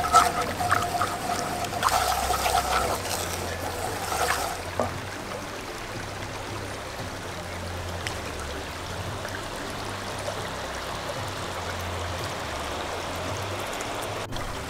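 Sweet orange sauce simmering and bubbling in a cast-iron skillet, stirred with a wooden spatula, as cornstarch thickens it. A thin steady whine sounds over the bubbling for the first four seconds or so, then only an even bubbling hiss remains.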